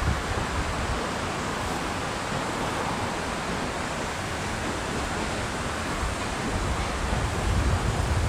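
Steady rushing outdoor background noise, with low wind buffeting on the microphone around the start and picking up again near the end.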